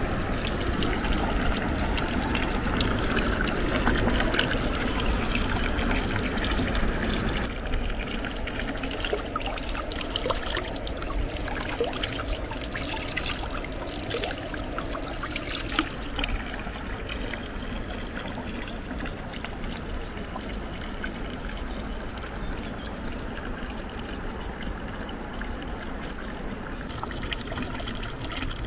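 Water from a stone village fountain's spout pouring into a granite trough. Around the middle, a hand held in the stream breaks it into irregular splashing before the steady pour returns.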